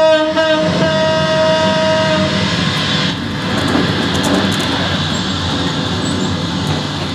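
A horn blowing one long, steady note that stops about two seconds in, followed by a steady rushing noise.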